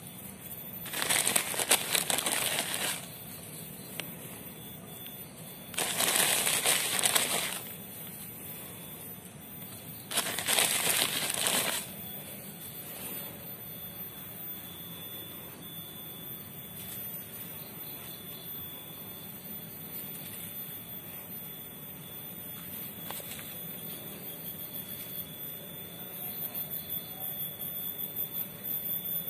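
Three bursts of plastic bag rustling as burnt rice husk is shaken out of it onto soil, followed by faint scraping as the husk is stirred into the earth.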